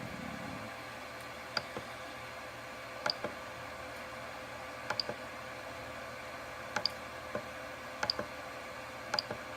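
The steady hiss of the Robo3D R1+ 3D printer's two part-cooling fans blowing. Over it come six sharp clicks, mostly in quick pairs, every second or two, while the controls are worked to switch the fans off.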